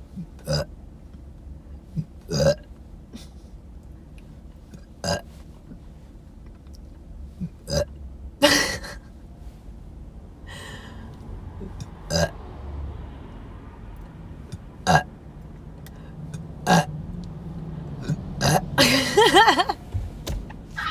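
A string of burps by young women, about a dozen short ones a second or two apart, with a longer burp that wavers in pitch near the end.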